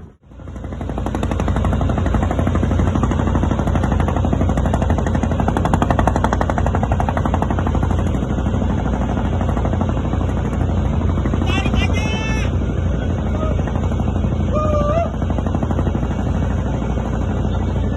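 Boat engine running close by with a fast, steady pounding beat. Brief pitched calls rise over it about twelve and fifteen seconds in.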